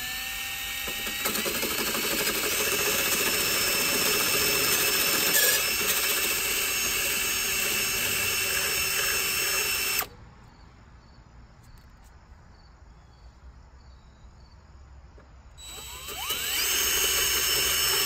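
Cordless drill with a 17/32-inch bit boring through a Jeep's fender sheet metal. The motor spins up with a rising whine and runs for about ten seconds, stops suddenly, then spins up again and runs near the end.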